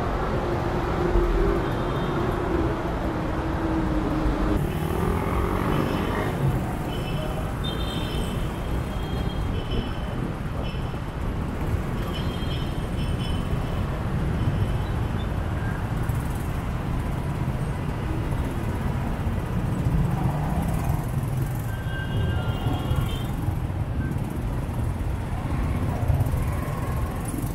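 Riding a motorcycle in city traffic: steady engine and road noise, with a pitched engine note in the first few seconds and a few brief high tones from the traffic around.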